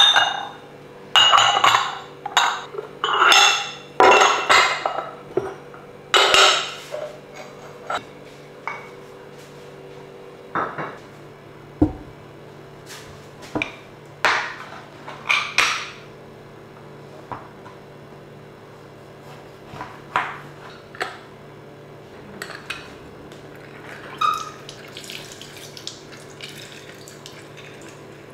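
Ceramic dishes clinking and knocking as small ramekins and bowls are handled, a quick run of sharp clinks over the first several seconds. Then come scattered knocks of a knife cutting oranges on a cutting board, and near the end oranges being squeezed in a hand juicer over a glass bowl. A faint steady hum runs underneath.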